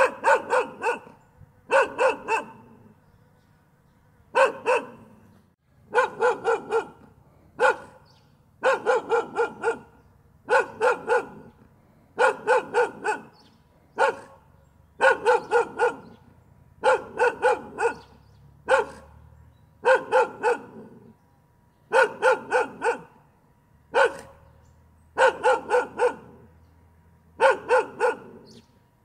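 A dog barking continuously in quick volleys of two to five barks, a new volley every second or two.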